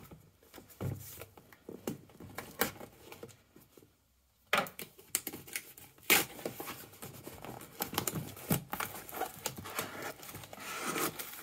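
Packing tape on a cardboard parcel being sliced with a folding knife and torn open, with the cardboard rustling and knocking as the box is turned over and its flaps are pulled. The sound comes as irregular scrapes, rips and knocks, with a brief silent gap about four seconds in.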